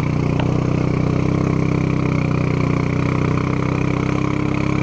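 ATV engine running steadily at low, even revs while the quad wades slowly through knee-deep muddy water, with a steady wash of churning water over it.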